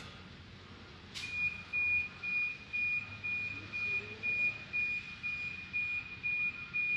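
An electronic beeper sounding a long run of short, high beeps on one pitch, about two a second, starting about a second in just after a brief click.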